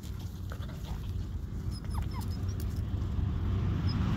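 Wind buffeting the phone's microphone in a low, uneven rumble that grows louder near the end, with a few faint, short high chirps about two seconds in.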